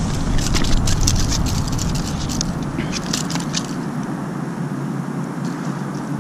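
Small clicks, taps and scrapes as a small trout and the lure's hooks are handled on a concrete seawall during unhooking. The clicks come thick in the first three seconds or so, then thin out.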